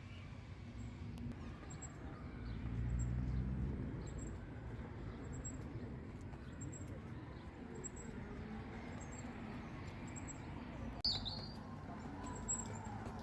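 Outdoor spring ambience with small birds chirping, including one sharp, falling chirp about eleven seconds in. A low engine hum swells and fades a few seconds in.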